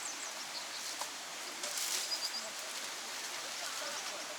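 Outdoor ambience: small birds chirping in short high calls over a steady rush like flowing water, with a brief louder rustle about two seconds in.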